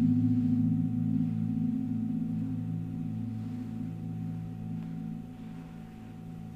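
Ambient background music: a low, gong-like chord of ringing tones that slowly fades away.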